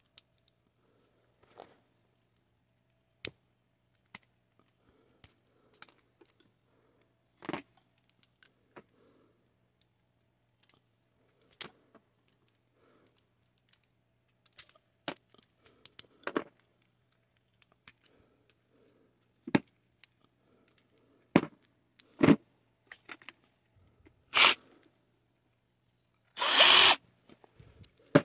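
Small metal parts of a butane stove's valve assembly clicking and clinking as they are worked apart by hand and with pliers. Scattered sharp clicks and knocks, growing louder toward the end, with the loudest a harsh scrape lasting about half a second near the end.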